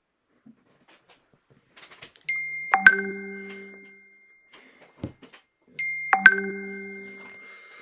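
A two-tone chime rings twice, about three and a half seconds apart. Each ring is a high steady tone followed by a lower struck note that rings and fades over a second or so.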